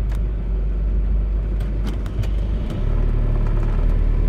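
Car moving, heard from inside the cabin: a steady low rumble of engine and road, its note changing about three seconds in, with a few short clicks.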